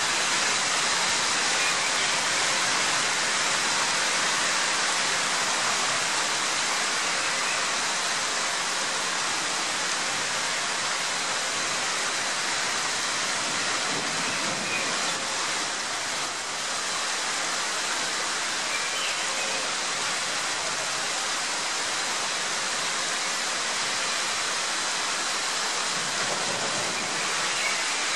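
Heavy downpour: a steady, dense hiss of rain pouring onto a wet street and trees.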